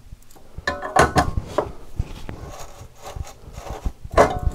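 Light clicks and scraping as a soldering iron is handled against its metal spiral stand, then a louder clink about four seconds in as the iron is set into the stand.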